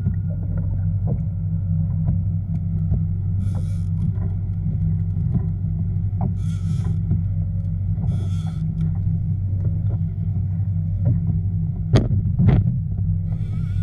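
A steady low motor drone with a faint high whine runs throughout. A few brief hissing splashes come through, and two sharp knocks land near the end.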